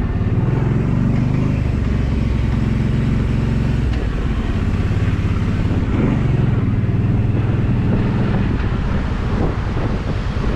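ATV engine running as the quad is ridden along a trail, its note dropping about four seconds in and picking up again a couple of seconds later as the throttle changes.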